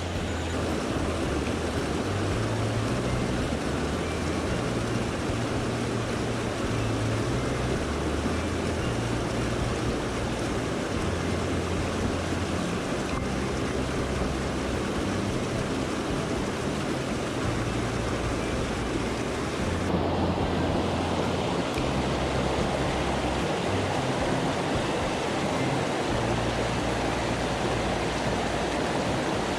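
Swollen mountain stream rushing steadily, the river running high after recent rain. The tone of the rush shifts about two-thirds of the way through.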